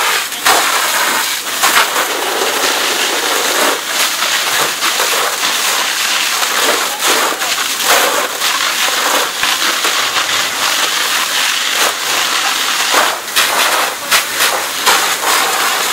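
Burning wood-frame house crackling and popping, with irregular sharp cracks over a steady rushing hiss.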